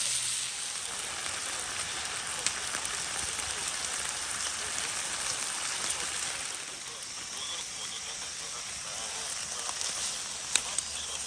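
Vegetables frying in a pan over a wood fire: a steady sizzling hiss, with a few sharp pops near the end.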